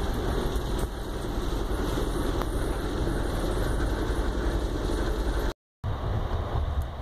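Steady rumble of an Amtrak passenger train at speed, heard from inside the car: wheels on rails and the car's running noise. The sound drops out completely for a moment about five and a half seconds in.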